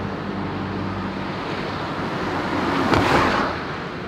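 A car driving past on a city street: engine hum and tyre noise build to a peak as it passes close about three seconds in, then cut off suddenly.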